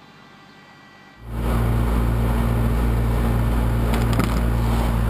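Knuckle-boom crane rig on a welding truck running, a steady low machine drone that starts abruptly about a second in, with a few brief crackles near the end.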